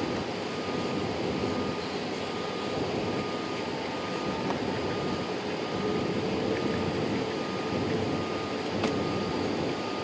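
Steady airliner cabin noise as the jet taxis: engines running with an even rush of cabin air and a thin, steady whine, and one light click near the end.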